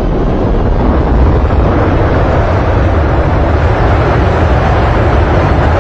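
Loud, steady roar of an airliner on the runway, a dense rushing noise with no clear engine tone.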